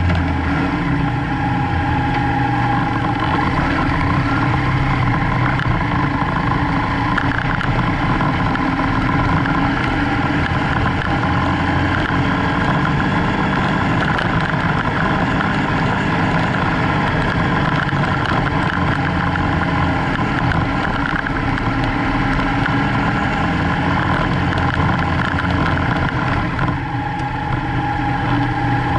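BMW F800GS parallel-twin engine running steadily under way, heard close up on the moving bike, with wind and tyre noise under it.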